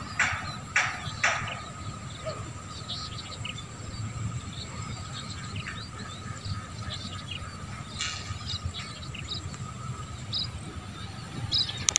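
Birds chirping over rice paddies: a few louder calls in quick succession near the start, then scattered short chirps, over a faint steady thin tone and a low background rumble.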